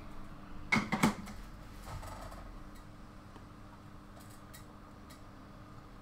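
Clicks and ticks of a circuit board and small tools being handled on a workbench. Two sharp clicks come about a second in, then faint scattered ticks as the board is taken out of the alligator clips of a helping-hands holder.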